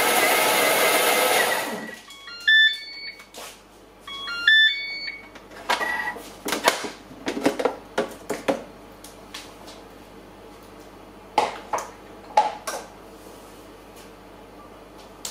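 Thermomix motor blending batter at high speed, stopping about two seconds in. The machine then plays a short beeping tune twice, signalling that the program has ended. Clicks and knocks follow as the lid is unlocked and lifted off the steel bowl.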